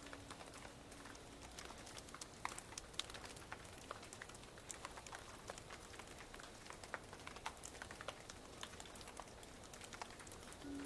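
Faint, irregular clicks and crackles, several a second over a soft hiss: the sound of sprouting bamboo shoots growing in a bamboo forest.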